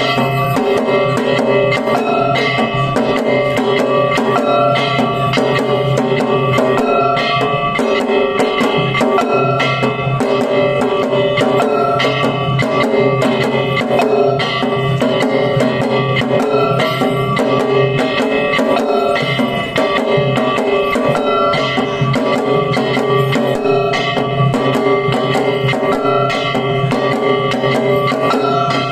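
Sanuki (Kagawa) lion-dance music: drums and other percussion struck in a fast, continuous rhythm, with held pitched notes ringing over them.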